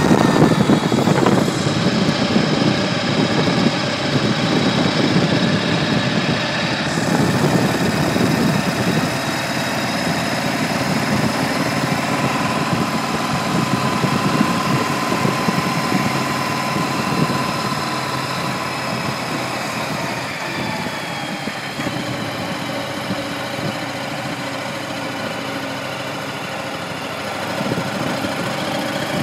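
Cruiser motorcycle engine running while riding, heard from the handlebars, with heavy wind rumble on the microphone for the first seven seconds or so. The engine then settles into a steadier, quieter run and picks up again near the end.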